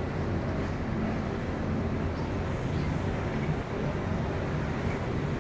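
Steady low engine rumble of a ship, with an even hiss of water and air noise over it.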